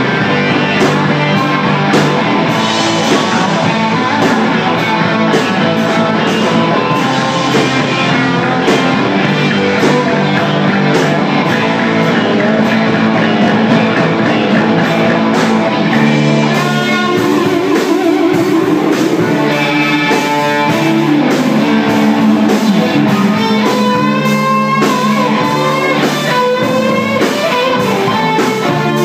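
Live rock band playing an instrumental stretch: guitar lines over bass and drum kit, with a wavering held guitar note partway through.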